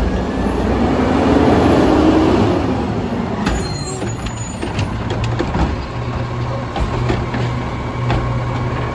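Autocar WXLL McNeilus Pacific Series front-loader garbage truck running, with a steady low engine hum. A louder surge rises and falls over the first couple of seconds, and a few sharp clacks follow from about the middle.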